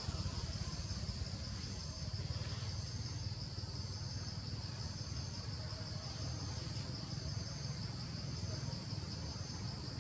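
Steady high-pitched insect chorus from the forest, with a higher pulsing note repeating about once a second, over a constant low rumble.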